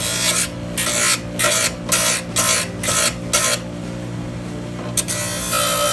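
Rhythmic abrasive scraping on the edges of an iPhone 5, about two strokes a second, then a pause and one longer stroke near the end, over a steady low hum.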